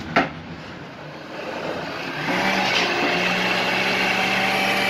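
A sharp clack just after the start, then an electric countertop blender switched on about two seconds in, its motor running steadily as it blends chopped tomatoes, cilantro, onion, garlic and peppers.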